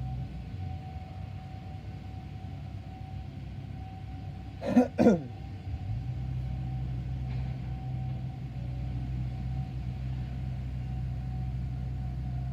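Distant outdoor warning sirens holding a steady tone over a low rumble, with two sharp coughs close to the microphone about five seconds in.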